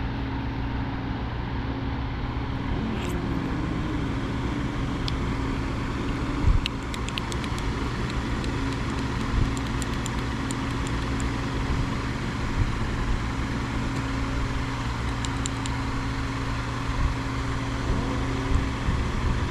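A steady engine drone with a low hum, and a few light clicks scattered through the middle.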